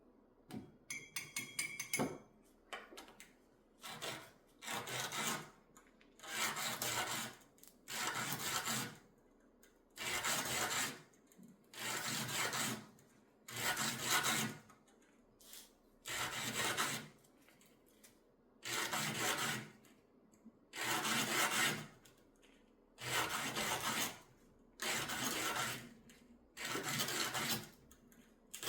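Fine sandpaper rubbed by hand over a piece of jewelry in separate strokes of about a second each, roughly one every one and a half to two seconds. A quick run of small ticks comes in the first two seconds.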